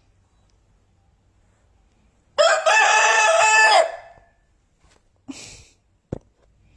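A rooster crowing once, a single loud call about a second and a half long that starts about two and a half seconds in. A brief noise and a sharp click follow near the end.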